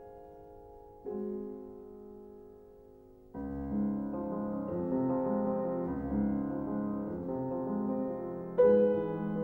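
Slow piano music used as a background track: a chord struck about a second in rings and fades, fuller playing comes in a few seconds later, and a louder chord is struck near the end.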